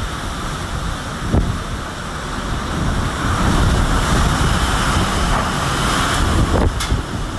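Strong storm wind blowing hard across the microphone, building to a stronger gust in the middle, with two short knocks, one early and one near the end.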